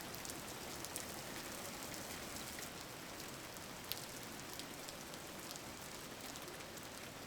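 Steady rain falling, an even hiss dotted with faint drop ticks, with one slightly sharper tick about four seconds in.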